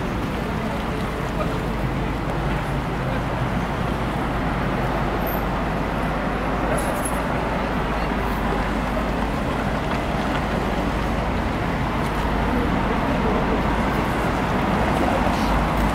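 Steady city street traffic noise, a continuous rumble of passing cars, getting a little louder near the end.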